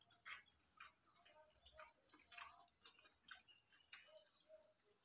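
Faint, irregular clicks and smacks of two people eating rice and curry by hand: chewing, lip smacks and fingers working rice on steel plates.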